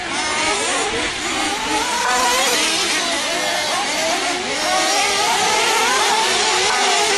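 Several nitro RC truggies racing together, their small two-stroke glow engines revving up and down over one another.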